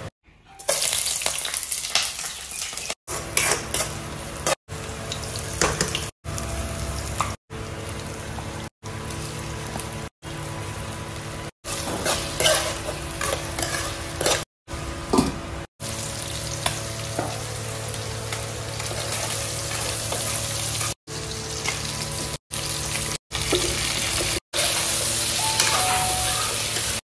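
Pork pieces sizzling in hot oil in a non-stick wok while a metal spoon stirs and scrapes them; later, chunks of jackfruit and potato are sizzling and being stirred in with the pork. The sizzle is broken about a dozen times by brief silent gaps.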